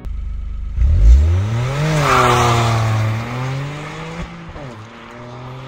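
Toyota GR Corolla's turbocharged 1.6-litre three-cylinder engine pulling away hard: about a second in the revs climb steeply, drop at a gearshift about two seconds in, then climb again and fade as the car drives off, with another shift about four seconds in.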